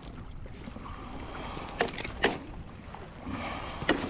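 Wind rumbling on the microphone aboard a fishing kayak on open water, with three sharp knocks: two about half a second apart near the middle, and one near the end.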